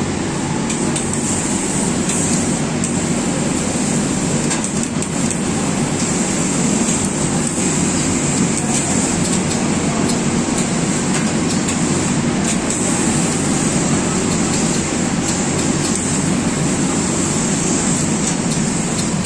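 Steady background noise of workshop machinery, an even mechanical din with a high hiss over it and a few faint clicks.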